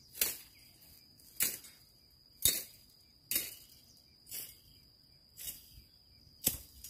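Knife chopping into bamboo shoots in even, sharp strokes about once a second, while a steady high insect trill runs behind.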